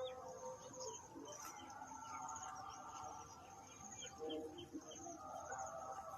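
Faint bird calls: low cooing notes of spotted doves mixed with short higher chirps from other birds.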